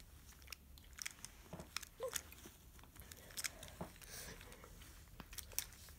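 Faint, scattered clicks and taps of plastic puzzle pieces being handled and fitted back into a Calvin's Puzzle 3x3x5 during reassembly.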